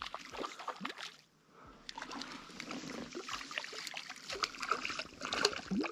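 Water splashing and sloshing in irregular spurts: a hooked trout thrashing at the surface as it is reeled in. There is a short lull about a second in.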